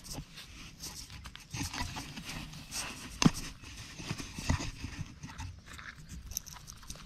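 A hand digging and groping in a hole in damp earth: irregular scraping and rustling of soil and dry straw with scattered soft knocks, a sharper knock about three seconds in and another a second later.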